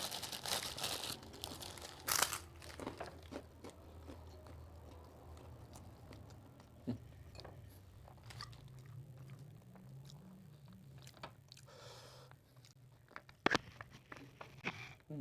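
Crunching and chewing of crispy fried gourami, loudest in the first second and again about two seconds in, with scattered smaller crunches and a sharp click near the end.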